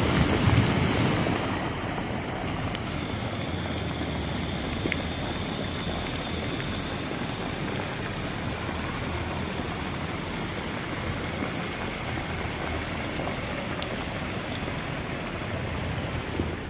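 Steady rush of floodwater, a little louder in the first second or two.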